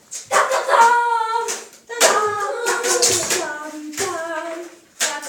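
A child's high voice singing without clear words in several long, wavering phrases, with a few short knocks between them.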